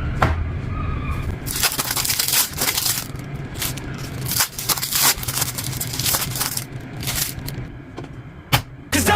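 Irregular crunching and crackling of a crispy fried sandwich, with scattered sharp cracks.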